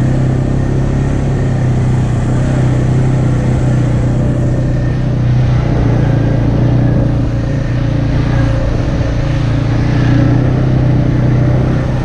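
ATV engine running steadily while riding along a dirt trail, a low, even drone with no change in pace.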